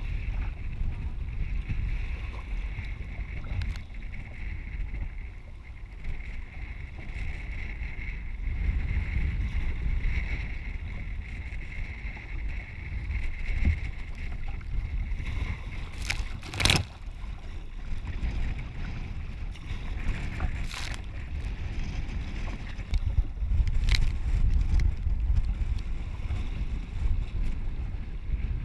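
Wind buffeting the microphone of a camera on a sea kayak's deck, over the hiss and slosh of choppy waves against the hull. A few sharp splashes cut through, the loudest about halfway through.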